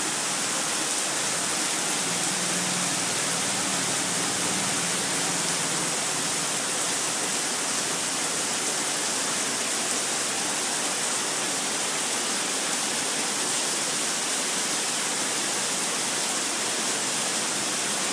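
Heavy monsoon rain pouring down steadily in a dense, unbroken hiss.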